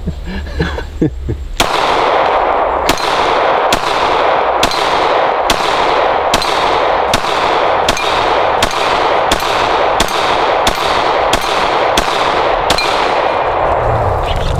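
Glock 17 9mm pistol firing about fifteen shots in a steady string, a little under a second apart and slowly quickening, starting about a second and a half in. The shots hit steel plate targets, which clang.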